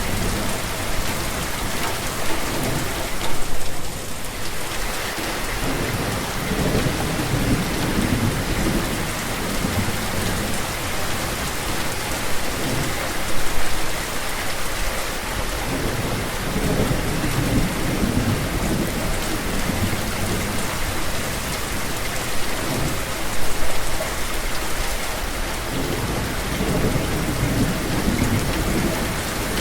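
Steady rain falling, with rumbles of thunder rising and fading several times.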